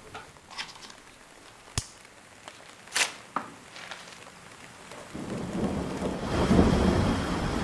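Storm sound effects: a few sharp, isolated drip-like clicks, then a low thunder rumble that builds from about five seconds in and is loudest near the end.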